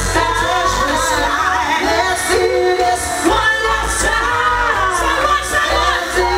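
Loud amplified music: a singer's voice through a microphone over a bass-heavy backing with a steady beat.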